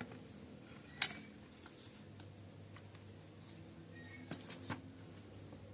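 A few sharp metallic clinks and knocks of hard parts being handled: a loud one about a second in, then two smaller ones near the end.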